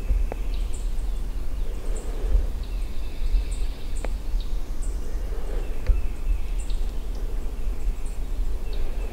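Forest ambience with songbirds calling. A short, high chip repeats roughly every second over a steady low rumble.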